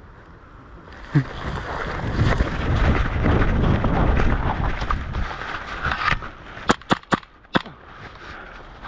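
Rumbling noise rubbing on the microphone for a few seconds, then four sharp airsoft shots in under a second near the end.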